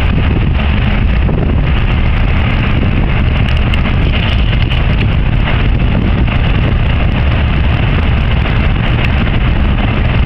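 Wind buffeting the microphone: a loud, steady, low rumble with no pitch or breaks.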